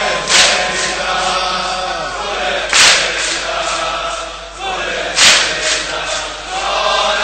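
A crowd of mourners chanting a Persian noha in chorus, with a loud unison chest-beating strike about every two and a half seconds, four in all.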